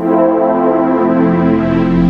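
Outro music: held synthesizer chords, with a deeper bass coming in near the end.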